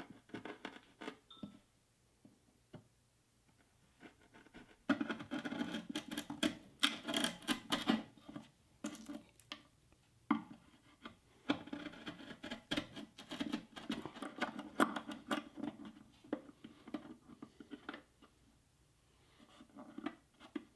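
Hand chisel scoring and paring a shallow hinge mortise in plywood: light scattered clicks at first, then two long spells of rapid scraping and crackling as chips are cut away.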